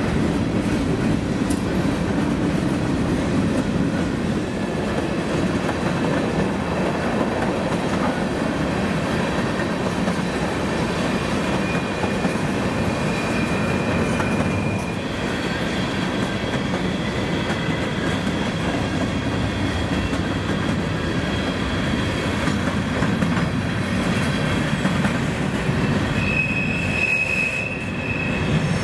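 Freight cars of a mixed manifest train (tank cars, boxcars, hoppers) rolling past with a steady rumble and clatter of wheels on rail. From about halfway through, wheels squeal on the curve in thin high-pitched tones that come and go.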